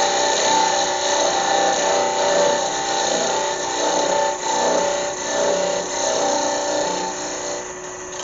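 A turning tool cutting a small walnut piece spinning on a wood lathe, taking a tenon down to the size of a drill bit; the cut rises and falls in level and stops near the end. The lathe hums steadily underneath.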